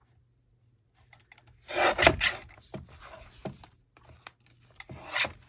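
Paper cutter slicing through paper: a loud rasping stroke about two seconds in, a few light knocks, then another rasping stroke near the end.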